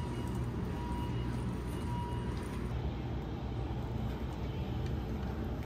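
Steady low rumble from the hydroelectric dam and the water pouring out below it, unchanging throughout.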